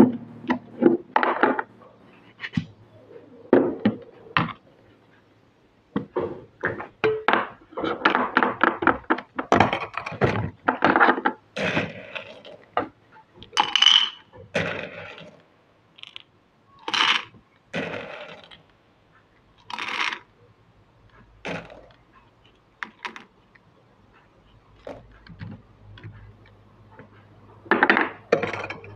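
Stainless steel hand-crank coffee grinder being taken apart and handled: a string of separate metal clinks and knocks as its parts are set down on the counter and on a digital scale, densest in the middle.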